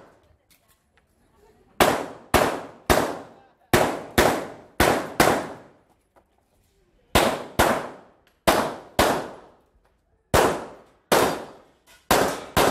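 Semi-automatic handgun shots fired in rapid pairs, about fifteen in all, in four quick strings of three to four shots. Each string is separated by a gap of a second or two as the shooter moves between positions. Each report rings out briefly after the crack.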